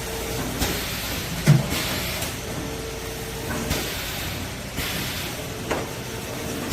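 L-bar shrink-wrap sealing machine working through its cycle: short hissing bursts, a sharp thump about one and a half seconds in, and a steady hum that starts and stops.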